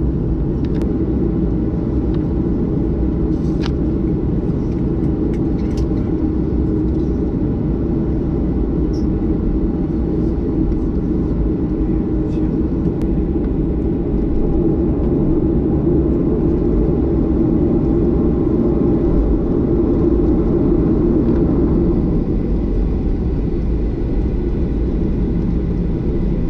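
Steady low rumble of a Boeing 737-800's CFM56 engines and airframe heard inside the passenger cabin, with a few light clicks. It swells a little about fifteen seconds in and eases again after about twenty-one seconds.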